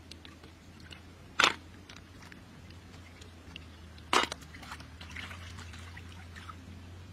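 Hands dabbling in shallow muddy rice-paddy water, with small drips and trickles and two sudden louder splashes, one about a second and a half in and one about four seconds in.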